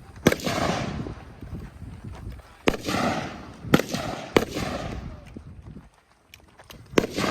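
Five gunshots at uneven intervals, each with a sharp crack followed by a trailing echo.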